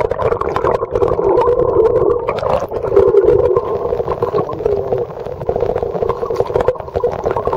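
Muffled underwater noise picked up by a submerged camera: a steady hum with crackling and small clicks throughout.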